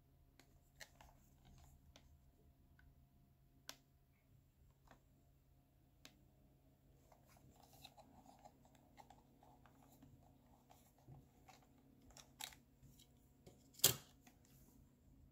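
Soft handling noise and scattered plastic clicks from a Sony WM-F15 cassette Walkman being turned over in the hands, with a sharper click near the end, over a faint steady hum.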